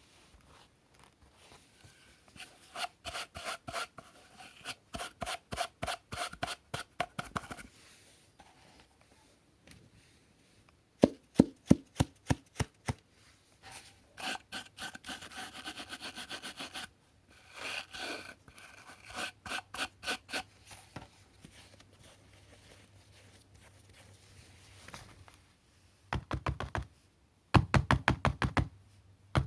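Quick repeated rubbing strokes, about four to five a second, in several bursts a few seconds long, from cleaning the parts of a cordless stick vacuum by hand. Louder, sharper clacking strokes come about a third of the way in and again near the end.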